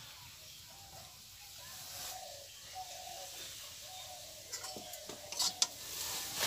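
Steady hiss of a steel wok of hot water over a straw-fired clay stove as rice flour goes in. Then a ladle knocks and scrapes against the wok several times near the end, stirring the flour into the water to make dough.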